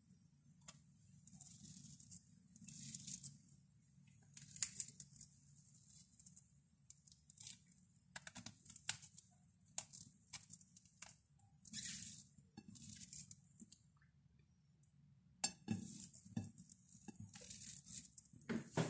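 Fingers breaking a crisp deep-fried fritter and mixing rice and curry by hand: a scattered string of short crackling and rustling noises with a few sharp clicks, over a faint low hum.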